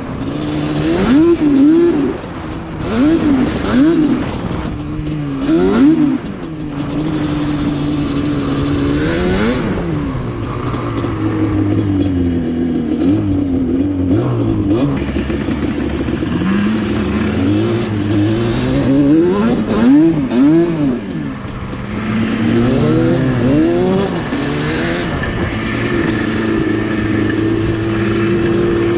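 Two-stroke ATV engines running: one holds a steady note while the throttle is blipped again and again, the pitch rising and falling in short revs every second or two.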